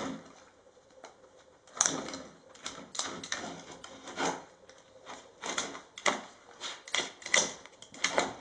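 Wooden dog puzzle toy clattering as a Jack Russell terrier noses and paws at its wooden discs and covers: irregular wooden clacks and knocks, with a knock at the very start and a steady run of them from about two seconds in.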